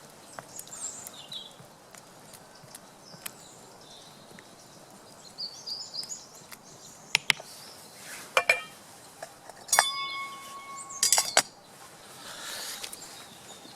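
Metal camp cookware clinking: scattered sharp clinks, then about ten seconds in a strike that rings on with a steady tone for over a second. Birds chirp in the background.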